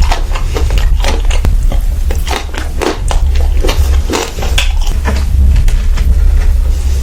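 Close-miked eating: rapid, irregular wet chewing and mouth-smacking clicks, over a steady low hum.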